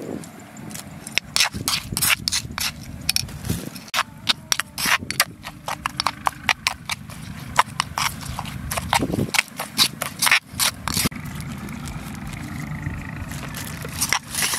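Metal spoon clicking and scraping against the inside of a stone mortar while stirring a wet chili paste: a quick, irregular run of sharp clicks that stops about three quarters of the way through.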